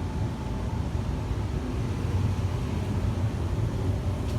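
2020 Evcon 65,000 BTU low-NOx gas furnace running in heating mode, its gas burners firing and its blower fan on, giving a steady, low-pitched running noise.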